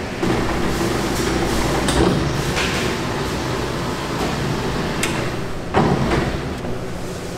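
Steady hum of bakery production machinery, with several sharp knocks and clatters of work being done, the loudest about six seconds in.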